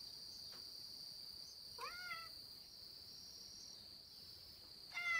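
A domestic cat meowing twice: a short rising-and-falling meow about two seconds in and another near the end, over a steady high-pitched whine.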